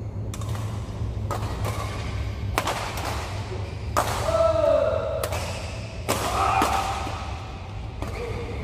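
Badminton rally: rackets hit the shuttlecock with sharp cracks about once a second, each ringing briefly in the hall. Players shout a little after the middle and again later, over a steady low hum.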